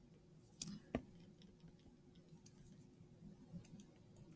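Faint ticks and taps of a stylus writing on a tablet screen in a quiet room. Two sharper clicks come just under a second in, and a few lighter ticks follow later.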